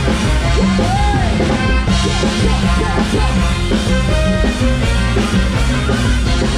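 Live band playing an upbeat Thai ramwong dance tune: drum kit and congas keeping a steady beat under keyboard and melody lines.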